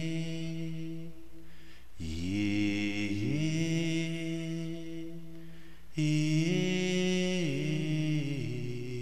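Wordless a cappella singing: overlapping voices hold long notes and glide between pitches. New phrases begin about two seconds in and about six seconds in, and the last one steps down in pitch twice near the end.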